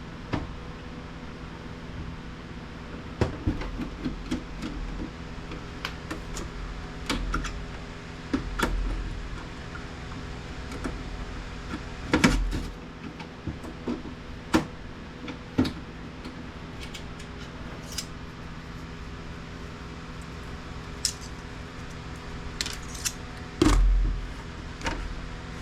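Scattered clicks, taps and light clatter of hand tools, screws and plastic and metal printer parts being handled while the printer is taken apart, with a few dull thuds over a steady low hum.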